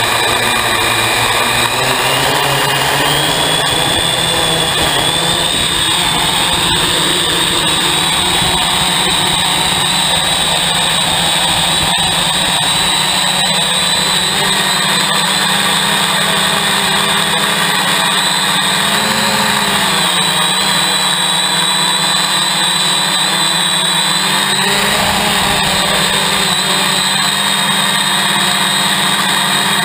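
Hexacopter's electric motors and propellers running, heard close up from its onboard camera: a loud, steady whine that rises in pitch in the first few seconds and again partway through, then wavers as the craft flies.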